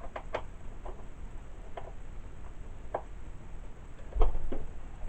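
Scattered light metallic clicks and taps of a wrench working the bar lock nuts on a Poulan Wild Thing chainsaw, at uneven spacing. A louder knock with a dull thump comes about four seconds in.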